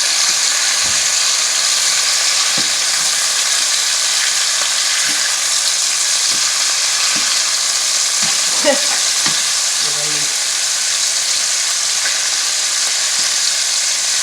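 Boneless chicken thighs sizzling steadily in hot grapeseed oil in a skillet as they are flipped, with scattered light knocks and scrapes of a spatula and one sharper knock a little over halfway through.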